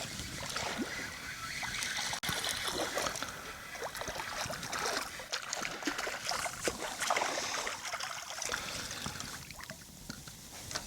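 Water splashing and trickling in small irregular bursts as a hooked speckled trout is brought to the side of a kayak. The splashes thin out near the end.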